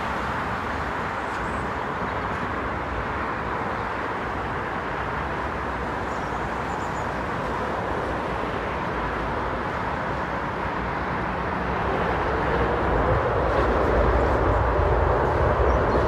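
Jet engines of a Boeing 747-8 freighter, its four GEnx turbofans making a steady rushing that grows louder about twelve seconds in as the aircraft draws nearer.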